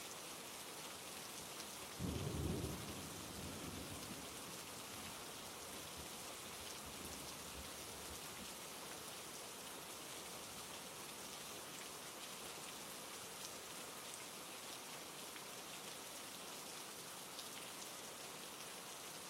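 Steady rain falling, with a single clap of thunder about two seconds in that rumbles away over the next couple of seconds.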